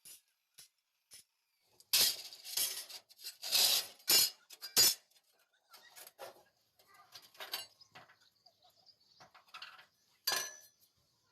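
Metal pieces clinking and clanking together in a series of separate knocks, loudest in a cluster early on and once more near the end.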